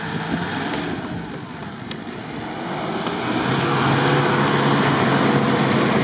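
Toyota Land Cruiser 100's engine revving hard while the SUV is high-centred in deep snow, with a hiss of tyres spinning; the revs swing up and down at first, then climb and hold loud from about halfway through. The truck is hung up on its belly, so the wheels spin without moving it.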